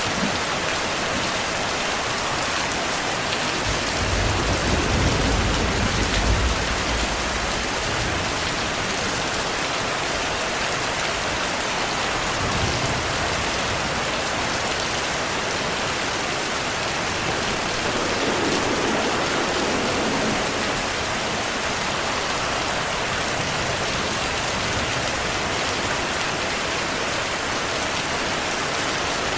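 Heavy rain falling steadily, with a low rumble of distant thunder swelling for a few seconds about four seconds in.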